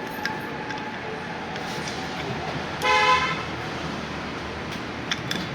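A vehicle horn toots once, briefly, about three seconds in, over a steady background of street noise. A couple of sharp clicks come near the end.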